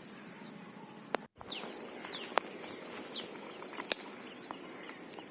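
Faint outdoor ambience of insects, a steady high-pitched drone, with a few short falling chirps and scattered light clicks. The sound cuts out completely for a moment a little over a second in.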